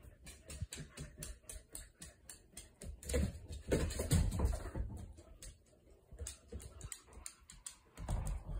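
Dogs at play with their toys: a run of light clicks and taps, with a louder low scuffling about three to five seconds in and again near the end.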